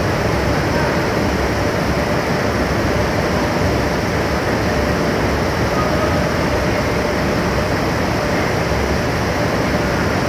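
Steady, loud running noise of heavy machinery with a faint constant hum, unchanging throughout.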